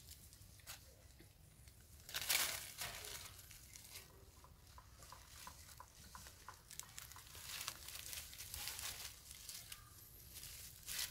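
Dry fallen leaves and twigs crackling and rustling as macaques shift about on the leaf litter, in irregular crackles with a louder rustle about two seconds in.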